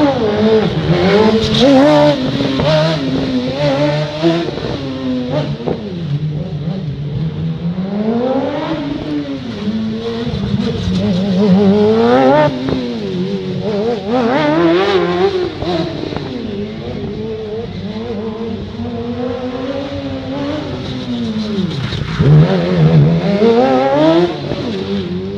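BMW S1000RR inline-four superbike engine in a Fiat 500, revving high and dropping back again and again as the car is driven hard, its pitch climbing and falling irregularly throughout.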